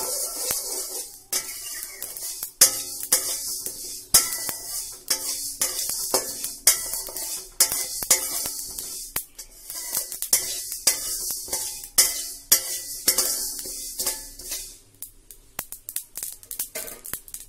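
A metal spatula stirring and scraping whole spice seeds (fennel, nigella, ajwain, fenugreek and mustard) as they dry-roast in a steel pan, the seeds rattling and hissing against the metal with each stroke. Near the end the mustard seeds begin popping in quick sharp crackles, the sign that the roasting is done. Background music plays underneath.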